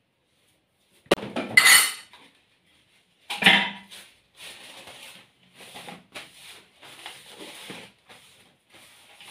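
Two loud knocking clatters in the first few seconds as the plastic mixing bowl and dough are handled and set down on the countertop, then a run of short rubbing strokes of a paper towel wiping the countertop.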